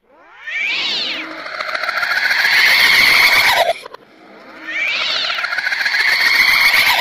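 Two long wailing cries, each sweeping up in pitch and then held for about three seconds, with a short gap between them about four seconds in.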